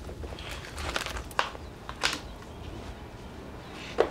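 Kitchen knife cutting shallots on a plastic cutting board: a few separate sharp taps of the blade against the board, the loudest near the end.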